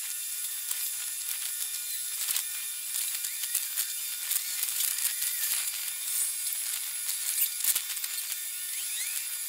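Dockside sound sped up forty times: a high, hissing buzz full of rapid clicks and short squeaky chirps, with a sharper click about three-quarters of the way through.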